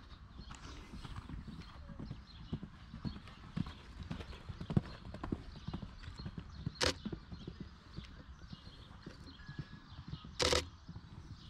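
Horse cantering on a sand arena: a steady run of dull, irregular hoofbeats. Two short loud bursts of hissing noise come about 7 s in and, longer, near the end.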